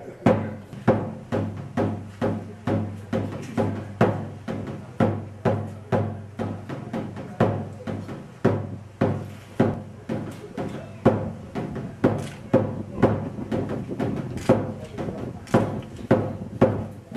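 A drum struck in a steady beat, about two strokes a second, as dance accompaniment.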